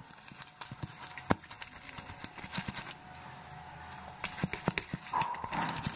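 Light clicks and taps of plastic microwave idli mould plates being handled and rubbed with oil, more frequent near the end. A faint steady tone comes in near the end.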